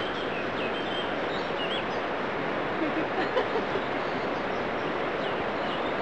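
Steady rush of a mountain stream, with small birds chirping over it in the first couple of seconds.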